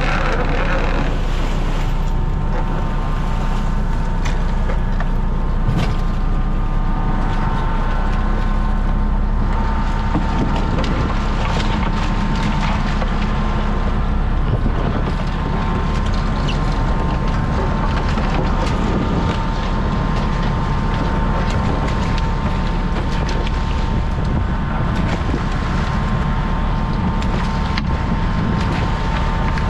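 Crab boat's engine and hydraulic system running steadily: a low drone with a steady whine over it. Scattered knocks and clatter come from the crab trap and gear being handled.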